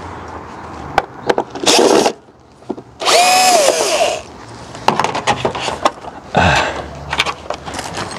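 Cordless drill-driver whirring in short bursts, speeding up and slowing down as it backs out the screws to open a neon flex light fitting; the longest run, about a second, comes about three seconds in, with small clicks of handling between.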